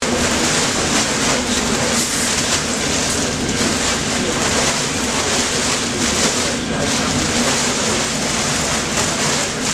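Horizontal stainless-steel rotating drum mixer for mushroom spawn and substrate, running with a loud, steady mechanical noise and a low hum.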